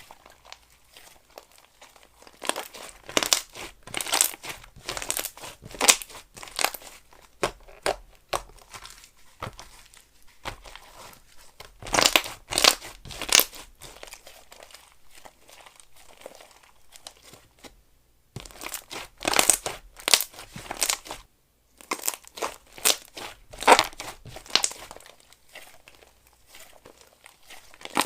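Slime being squished, poked and stretched by hand, giving crackling and popping sounds in bursts of a few seconds, with short quiet pauses between handlings.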